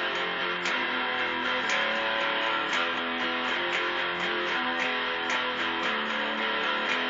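Electric guitar being strummed, the chords changing about once a second, with a sharp accent recurring about every second.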